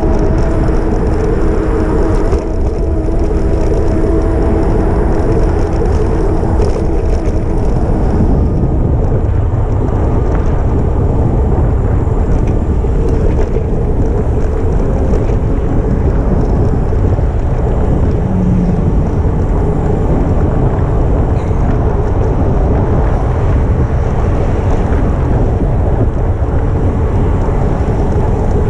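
Steady rush and rumble of wind buffeting an action camera's microphone while riding an e-bike. For the first several seconds a steady hum sits on top of the wind, then fades out.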